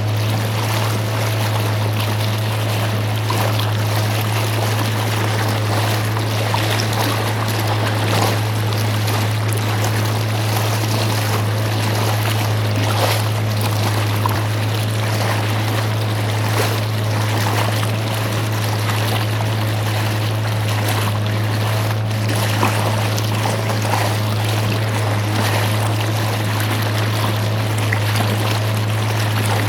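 Small boat's engine running at a steady speed with a constant low hum, while water rushes and splashes along the hull.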